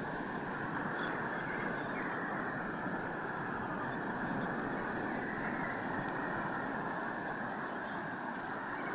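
Steady rushing noise of strong wind and breaking surf, with no distinct events.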